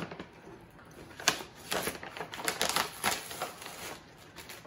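Plastic pouch of brewer's yeast powder crinkling and crackling as it is opened and a measuring cup is dipped into it: a string of short, sharp crackles at irregular intervals.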